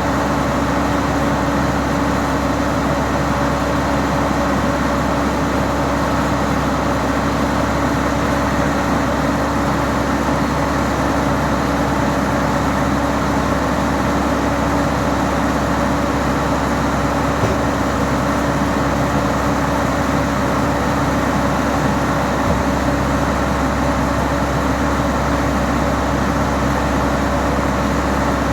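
Steady drone of an ATR 72-600's Pratt & Whitney PW127 turboprop engines and propellers, with a couple of constant hum tones over rushing noise.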